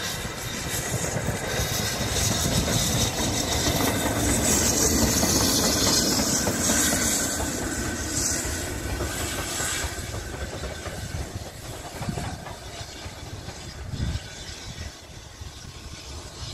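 Steam locomotive and tender running light past at close range, wheels clattering over the rail joints with a hiss of steam. The sound builds to its loudest about five seconds in, then fades as the engine draws away.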